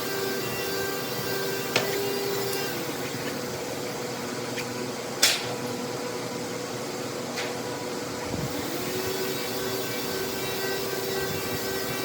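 Electric woodworking machine running with a steady whine. The whine dies away about a third of the way in and winds back up after about eight seconds. Three sharp knocks sound over it, the loudest near the middle.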